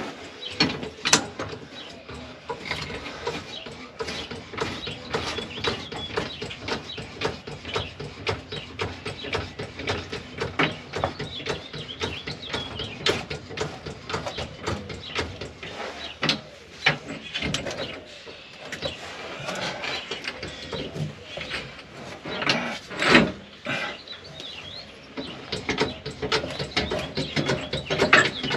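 Hand ratchet clicking in runs as a bolt is turned, with scattered metal clanks and knocks from tools and parts.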